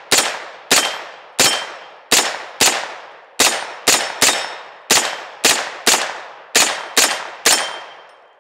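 A 9mm AR-15-style pistol caliber carbine fired semi-automatically: about fourteen shots at an uneven pace of roughly two a second, each one trailing off in a fading echo.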